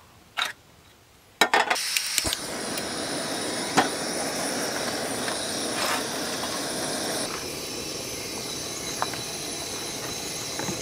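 A few clicks, then a remote-canister gas camping stove lights about a second and a half in and burns at a strong flame with a steady hiss. The hiss drops slightly about seven seconds in.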